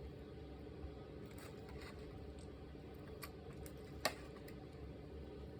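Hands kneading and pulling sticky clear slime, giving faint wet squishes and small sharp clicks, the loudest about four seconds in.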